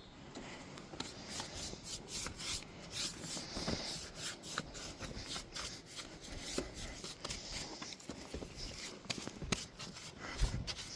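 An applicator rubbing wood stain and sealer onto the timber of a 2x4 wooden ladder, in quick, irregular scratchy strokes.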